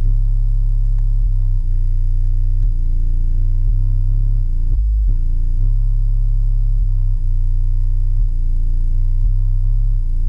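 Bass-heavy music played loud through a car audio system's subwoofers, deep bass notes changing every second or so, with little treble.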